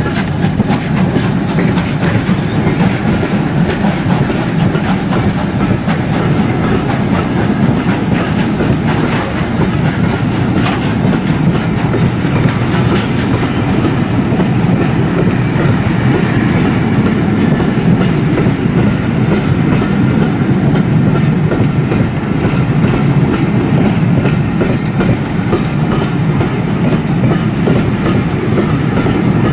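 Train running on the rails, a loud steady rumble with wheels clicking over rail joints.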